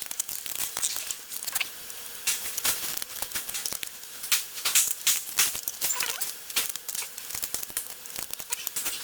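Plastic parts of a car's center console knob assembly clicking, scraping and rattling in a quick irregular run as they are handled and pried apart by hand.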